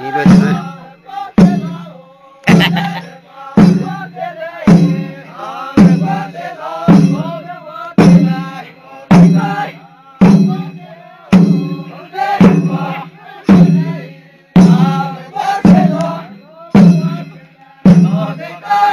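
Zeme folk dance song: a drum struck at a slow, even beat, about once a second, with a low boom after each stroke, under a group of voices chanting.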